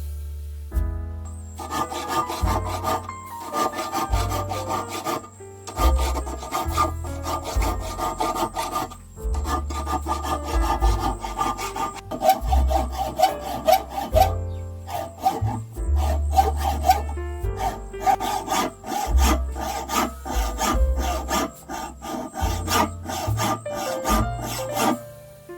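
Rapid back-and-forth rasping strokes of a hand tool, in runs of a few seconds broken by short pauses, over background music with low bass notes.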